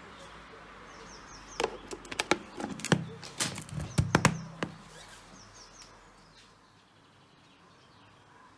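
Plastic lid being pressed down onto a mixing bowl: a quick run of sharp plastic clicks and crackles lasting about three seconds, strongest about halfway through.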